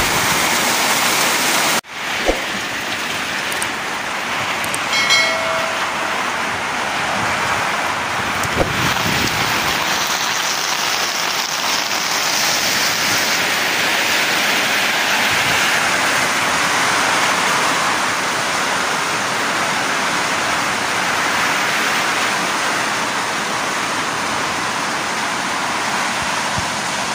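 Steady heavy rain, a loud even hiss, broken by a sudden cut about two seconds in. A short beep sounds around five seconds.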